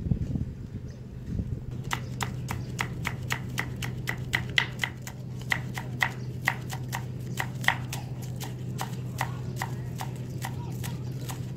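Kitchen knife chopping spring onion on a wooden chopping board: a steady run of sharp knocks, about three to four a second, starting about two seconds in and thinning out near the end.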